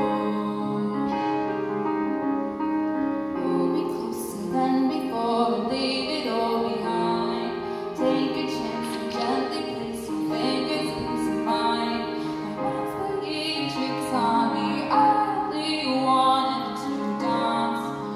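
A woman singing while accompanying herself on a grand piano.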